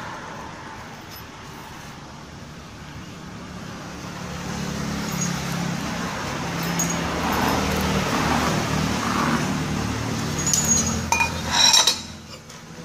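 A road vehicle's engine passing by, its hum swelling over several seconds and then fading, with a few sharp metallic clinks near the end.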